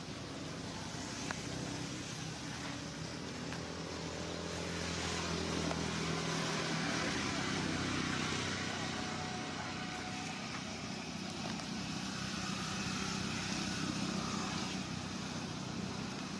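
A motor vehicle engine running with a steady low hum that fades after about six seconds, over a constant outdoor background hiss.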